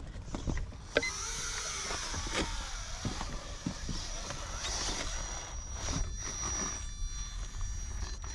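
Radio-controlled rock crawler's electric motor and gear drive whining steadily as it crawls, starting about a second in after a couple of sharp clicks.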